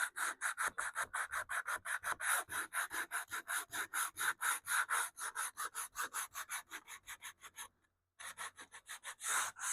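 Hand sanding of a wooden radio cabinet with sandpaper: quick, even back-and-forth scraping strokes, about five a second, with a brief pause about eight seconds in before the strokes resume.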